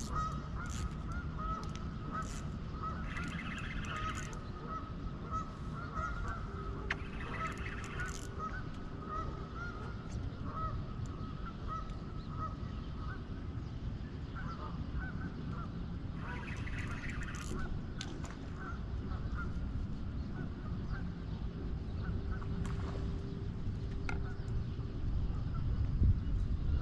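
Geese honking repeatedly, thick at first and then more scattered, over a low steady rumble.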